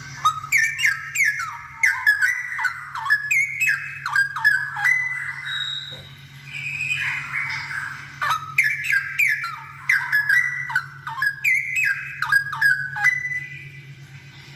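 Straw-headed bulbul (cucak rowo) singing in loud, bubbling, quick-changing warbled phrases, in two runs of about five seconds with a short lull between. A steady low hum runs underneath.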